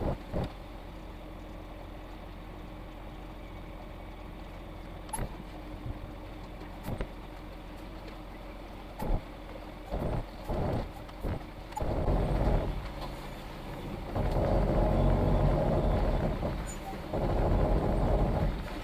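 Concrete mixer truck's diesel engine idling low, with a few short knocks, for the first twelve seconds or so. It then runs louder in three surges as the truck moves into position.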